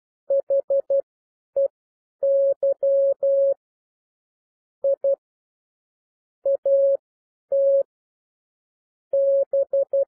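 Morse code practice tones at 12 words per minute: a single mid-pitched beep keyed in dits and dahs, spelling H, E, Y of "they", then "I", "AT" and the start of "BE", with longer pauses between words.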